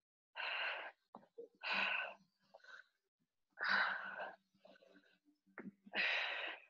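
A person breathing hard from exertion: four heavy, breathy exhales about every one and a half to two seconds, with a few faint taps in between.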